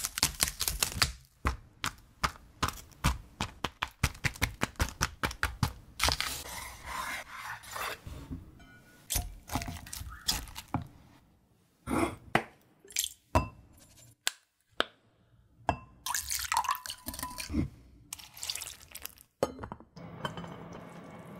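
Kitchen food-prep sounds: a quick, even run of knife cuts through layered napa cabbage and pork on a wooden cutting board, then rustling and scattered clinks and knocks as the pieces are packed into a ceramic pot and the lid goes on. It ends in a steady low hiss.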